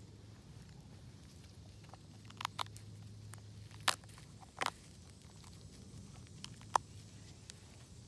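A few scattered faint snaps and rustles as clumps of white oyster mushroom are pulled and broken off a rotting log by gloved hands, over a low steady hum.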